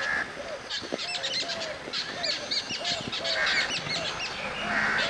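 Several birds calling together: short harsh calls repeating at a steady pace, with many quick high chirps over them.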